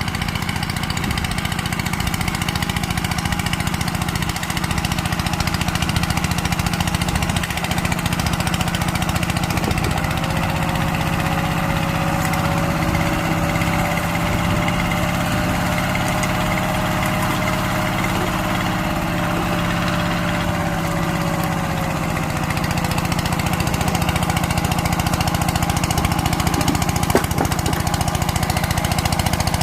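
Single-cylinder diesel engine of a walking tractor (power tiller) running steadily while tilling soil.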